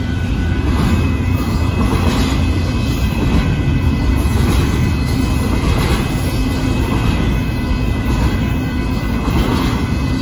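Intermodal freight train rolling past close by: the loud, steady rumble and rattle of the cars' wheels on the rails.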